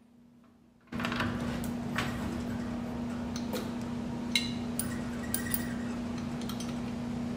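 Bench drilling machine's motor starting suddenly about a second in and then running steadily with a low hum, with a few light metallic clinks in the middle.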